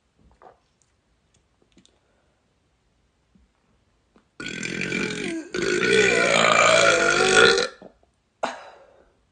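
A woman's long, loud belch starting about four seconds in. It breaks off briefly after a second, then runs on for about two more seconds with a wavering pitch. A short sound follows near the end.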